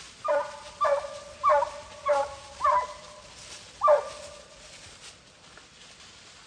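Hunting hound barking close by: six short, loud barks in about four seconds, each dropping in pitch, after which the barking stops.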